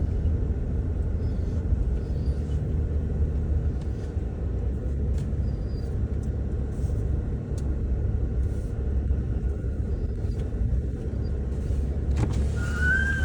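Steady low rumble of a car driving slowly, heard from inside the cabin. A brief high-pitched cry near the end.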